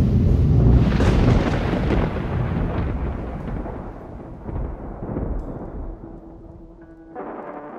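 A long rumble of thunder that swells about a second in and slowly dies away. Brass music comes in near the end.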